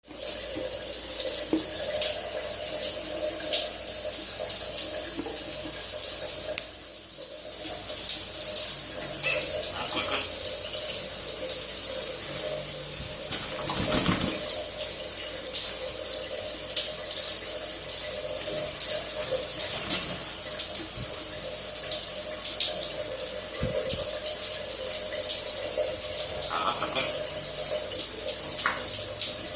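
Water running steadily from a tap and splashing, with a steady tone under the hiss. The flow drops off briefly about seven seconds in.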